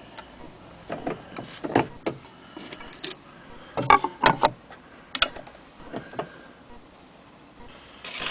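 Handling clicks and knocks as a shellac 78 rpm record is set on an HMV Model 103 gramophone's turntable and the tone arm with its No. 4 soundbox is moved over it. Near the end the needle meets the record and a steady surface noise starts.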